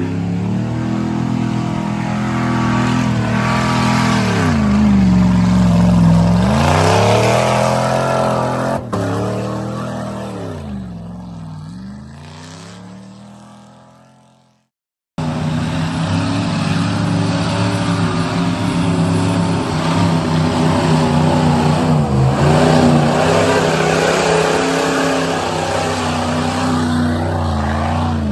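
Off-road 4x4 engine revving up and down under load, its pitch repeatedly rising and falling. About halfway the engine sound fades away into a brief silence. Then an engine is heard running again, with smaller rises and falls in revs.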